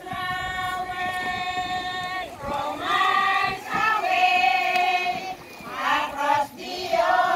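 A group of women and children singing together like a choir, in long held notes with short breaks between phrases.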